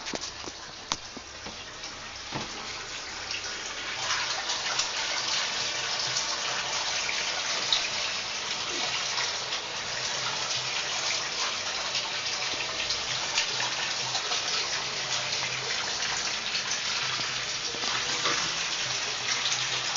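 A shower running: steady hiss of water spraying, louder from about four seconds in.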